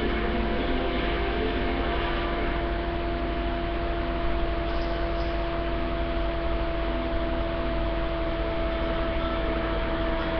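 Steady hiss with a constant hum of two held tones, unchanging throughout; no cat calls stand out.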